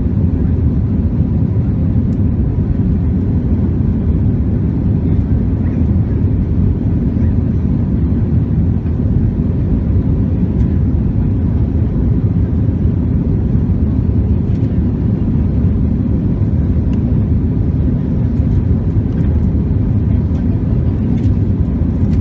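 Airbus A321-200 cabin noise during the climb after take-off: the steady, low roar of engines and rushing air heard from a window seat over the wing.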